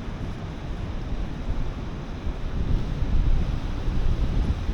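Strong wind buffeting the microphone, a gusting low rumble, over the steady rush of rough surf.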